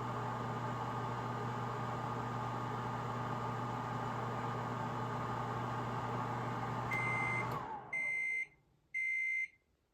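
1985 General Electric JEM6001 microwave oven running with a steady hum and fan noise. Near the end it beeps, shuts off and winds down, and then keeps beeping about once a second to signal that the cycle has finished.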